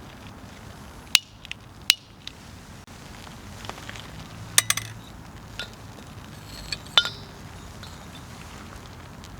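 Wood campfire burning, with a handful of sharp, scattered pops and clicks over a low steady noise; the loudest pop comes about seven seconds in.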